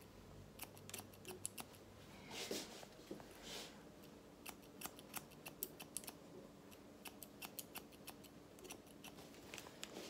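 Hairdressing scissors snipping in faint, quick, irregular clicks as they point-cut into the ends of short hair to blend it. A couple of brief soft rustles come about two and a half and three and a half seconds in.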